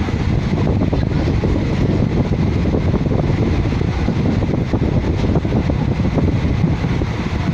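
Train running at speed, heard from inside a carriage at an open window: a steady rumble of wheels on the track with wind rushing past.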